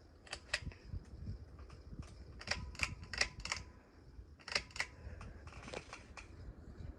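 A series of sharp, irregular clicks, about a dozen in quick clusters, over a faint steady hum.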